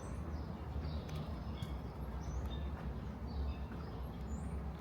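Scattered short bird chirps over a steady low outdoor rumble.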